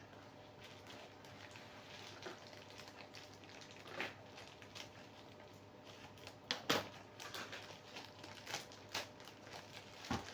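Sandal packaging being cut with scissors and handled: scattered small clicks, crackles and snips, with a couple of sharper snaps about 4 seconds and 6.5 seconds in.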